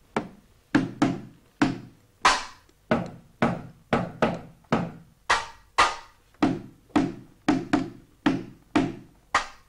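Cardboard boxes beaten with sticks in a steady, slow beat of about two strikes a second, each a hollow thud that dies away quickly. It is a deliberately grumpy, discontented-sounding rhythm.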